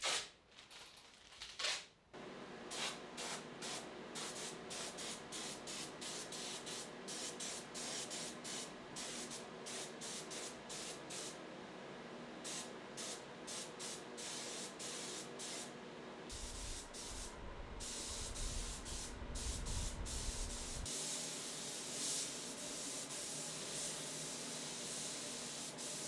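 Compressed-air paint spray gun hissing in many short bursts as the trigger is squeezed and released while the tractor is sprayed. Near the end it gives one longer, continuous spray. A steady hum runs underneath, and a deeper rumble comes in for a few seconds in the middle.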